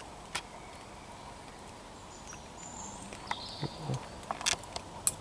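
Quiet forest ambience at dusk: a steady faint hiss with a few short high chirps a couple of seconds in, and scattered light clicks and rustles.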